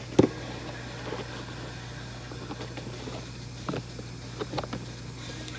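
A steady low hum with a few scattered short knocks, the loudest a sharp knock just after the start.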